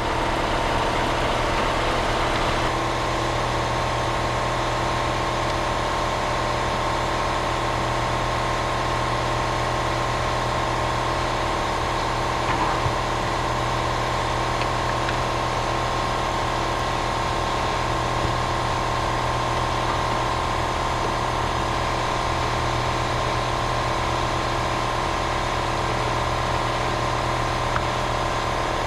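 Car engine idling steadily, an even mechanical hum with a few faint clicks.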